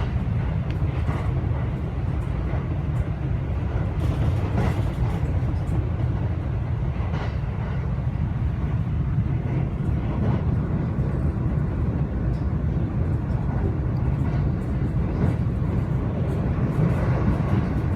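Passenger train running, heard from inside the carriage: a steady low rumble of the wheels on the track.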